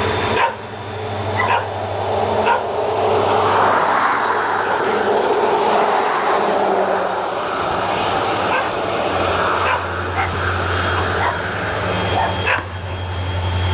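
CSX diesel freight locomotives working as they approach, a steady rumble that swells in the middle. Short sharp sounds repeat every second or so over it.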